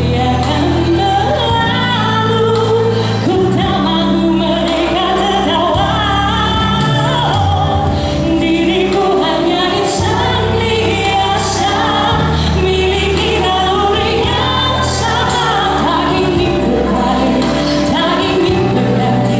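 A woman singing a song live into a handheld microphone over a recorded backing track, both amplified through a PA speaker.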